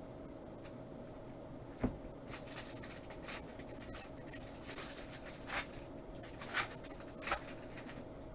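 Glossy football trading cards being slid and flipped over one another in the hand: a string of short swishes and clicks, with a sharper tap about two seconds in, over a faint steady hum.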